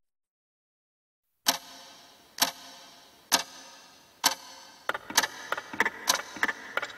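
Clock ticking, starting about a second and a half in with loud, sharp ticks about once a second, each with a short ringing tail. From about five seconds in the ticks quicken into a faster, busier run of clicks.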